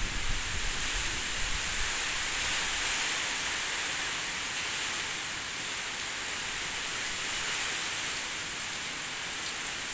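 Heavy rainstorm: a steady, dense hiss of pouring rain, with low gusts of wind in the first two seconds.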